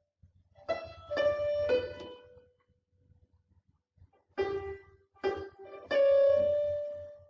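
Electronic keyboard played slowly, one note at a time: three notes in quick succession, a pause of about two seconds, then three more, the last held and dying away.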